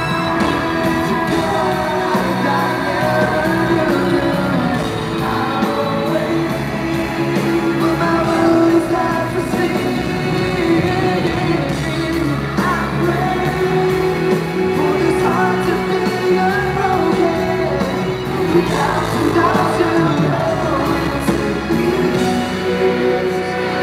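Live pop music with singing, as heard from the audience at a concert, running without a break.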